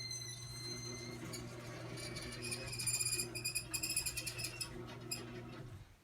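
Old Chamberlain half-horsepower garage door opener running as it closes the door: a steady motor hum, with rapid high squeaking from about two seconds in. The motor cuts off just before the end, as the door finishes closing.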